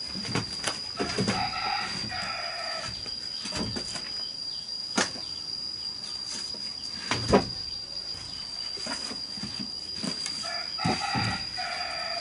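A rooster crowing twice, once about a second in and again near the end, over a few sharp knocks of wooden slats and bamboo being handled, the loudest about seven seconds in. A steady high whine runs underneath.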